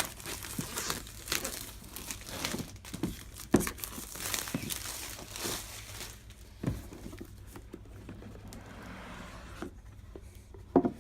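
Plastic shrink wrap being torn and crumpled off a board game box, with crackling crinkles and small sharp snaps, softer toward the end.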